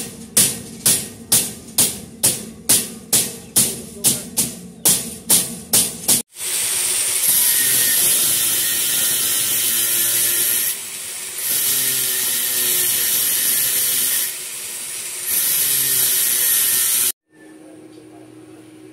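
A hammer striking a steel window grill in steady blows, about two a second, for the first six seconds. Then an electric hand drill runs steadily at the grill's frame, easing off twice, until it stops abruptly near the end.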